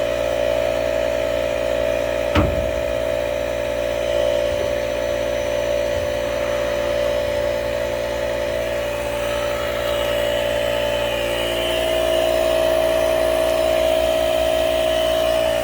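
Air compressor motor running with a steady hum, with a single knock about two and a half seconds in.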